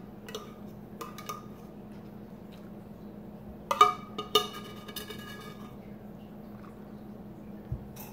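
A utensil clinking and scraping against the inside of an open metal tuna can, with a few sharp clicks and a louder cluster of ringing clinks about four seconds in.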